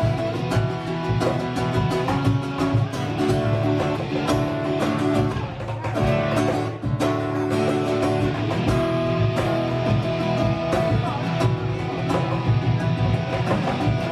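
Live acoustic guitar strummed in a steady rhythm, with a man singing and a beat from a cajon.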